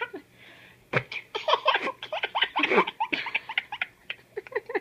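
An infant giggling in quick bursts of laughter, starting about a second in.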